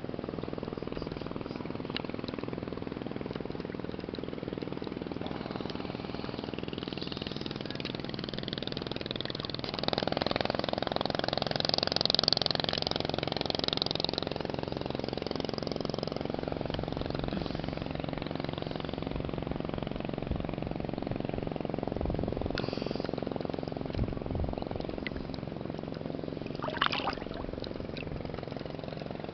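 A motorboat engine running steadily, its hum unchanging throughout. Between about ten and fourteen seconds a louder rush of water splashing close to the microphone comes over it, and there is a sharp click near the end.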